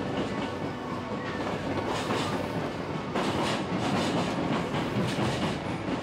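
Hankyu Kyoto Line train running along the track, heard from inside the car: a steady rumble of wheels on rails, with the wheels clacking over rail joints several times.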